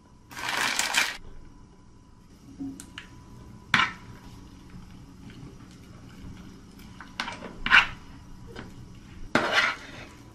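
Metal spoon scraping and tapping against a small bowl while stirring a soft cheese filling. There are short scrapes about half a second in and again near the end, with a few sharp clicks of the spoon on the bowl in between.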